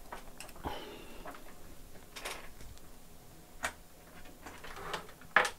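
A few scattered light clicks and taps of tools being handled on a workbench, with a brief rustle in the middle and a sharper knock near the end.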